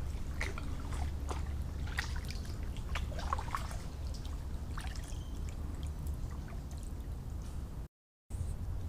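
Water trickling and splashing lightly around a kayak, in small irregular splashes over a steady low rumble. The sound drops out completely for a moment near the end.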